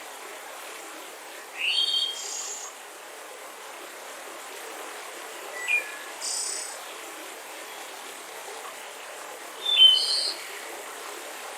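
Forest birds calling in three short bouts, about two seconds in, around six seconds and near ten seconds, the last the loudest, over the steady rush of a mountain river.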